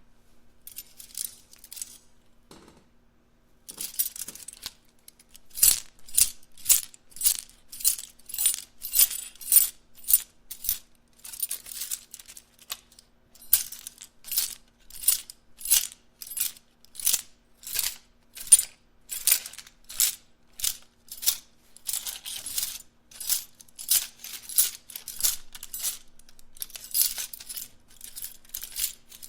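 Many small metal items rattled and shaken together, jingling and clinking like loose coins. A few light rattles come first, then a short pause, then steady shaking from about five seconds in, about two shakes a second.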